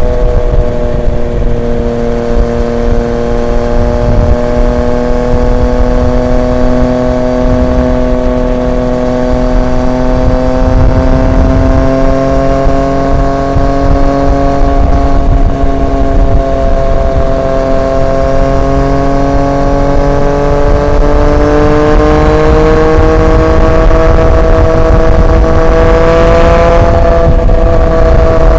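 Triumph Street Triple 765 RX's inline three-cylinder engine, heard through an SC Project S1 aftermarket exhaust, cruising at a steady throttle. Its pitch climbs slowly over the last third and eases off slightly near the end, over a low rumble.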